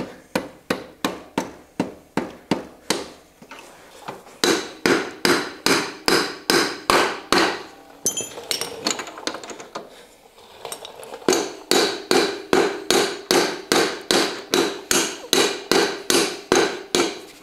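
Repeated hammer blows, about three a second, driving out the Honda CB450T's rear axle, which is stuck fast in old grease that has turned to glue. Each blow gives a metallic ring. The blows ease to lighter, sparser taps for a few seconds midway, then resume steadily.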